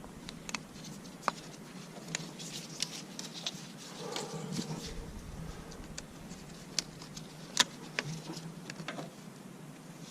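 Scattered light metallic clicks and taps of pliers working hose clamps back onto fuel lines.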